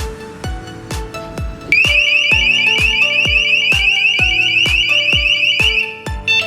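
KERUI J009 wireless alarm siren sounding a loud, rapidly warbling high-pitched tone, starting about two seconds in and lasting about four seconds, over electronic background music with a steady beat.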